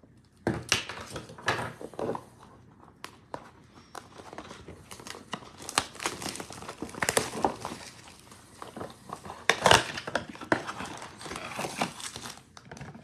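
Plastic shrink wrap crinkling and tearing as it is stripped off a Panini Prizm trading-card blaster box, then the cardboard box handled and opened and its packs pulled out. The sound is a string of irregular crackles and rustles, the loudest a little under ten seconds in.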